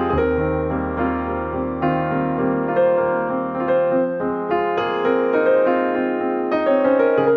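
Background music: a gentle piano piece, single notes of a melody over held chords.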